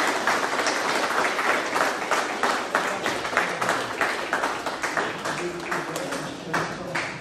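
A crowd of people applauding, with one person's claps close by at about three a second; the applause gradually fades and dies away near the end.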